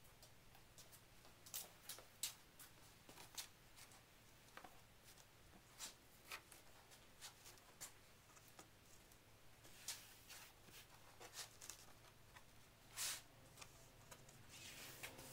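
Faint handling sounds of woven fiberglass cloth being unfolded and spread over a plywood panel: scattered light taps and rustles, a few louder ones, over a low steady hum.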